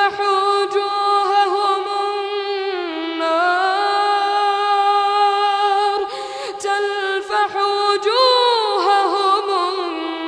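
A young boy's voice reciting the Quran in a slow, melodic tajwid style, holding long drawn-out notes with ornamented turns in the pitch. There are short breaths between phrases, and a rising, embellished phrase comes near the end.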